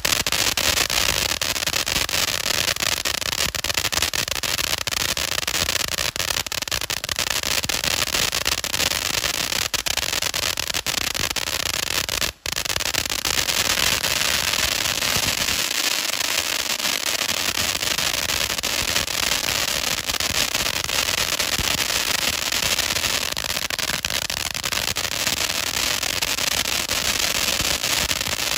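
Golden Triangle ground fountain firework burning: a steady hiss of spraying sparks thick with rapid crackling. It drops out for an instant about twelve seconds in.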